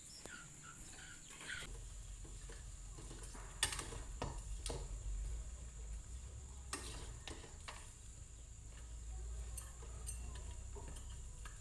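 A few sharp clinks of a metal pot and utensils at a gas stove, over a low steady rumble that starts about a second and a half in.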